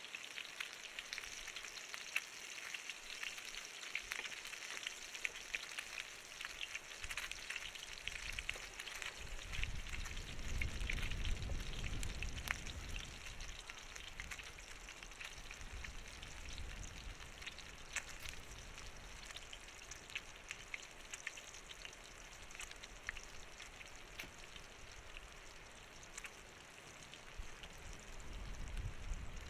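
Food frying over a wood fire: a steady sizzle full of fine crackles. A low rumble swells in about a third of the way in and again near the end.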